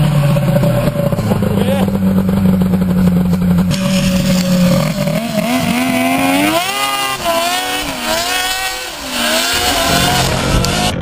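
Polaris XLT 600 three-cylinder two-stroke snowmobile engine with an aftermarket DG exhaust can, running at a steady pitch, then revving up about five seconds in as the sled pulls away, its pitch swooping up and down several times.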